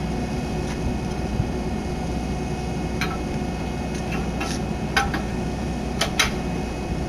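Steady low machinery hum, with a few light sharp clicks about three, five and six seconds in.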